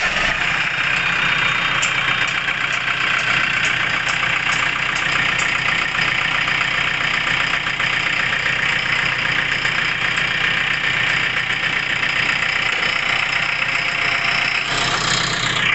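JCB 3DX backhoe loader's diesel engine idling steadily, shortly after being started.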